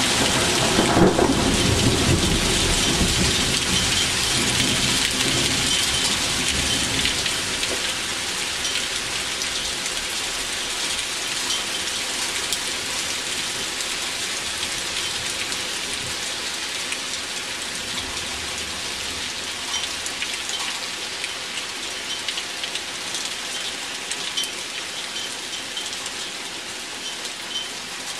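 Thunder rumbling for the first six or seven seconds after a lightning flash, then dying away, over a steady heavy downpour of rain mixed with hail, with scattered small ticks. The downpour eases slowly.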